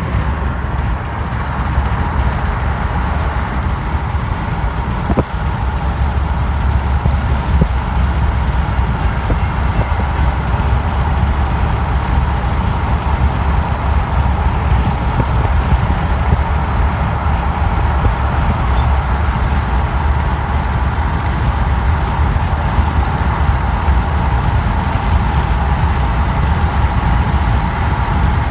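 Steady low rumble of road, tyre and wind noise from a car moving at speed.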